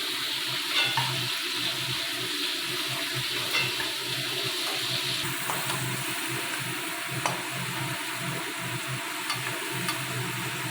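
Yogurt-marinated chicken pieces sizzling steadily in hot oil in a kadai, with a few sharp clicks and pops.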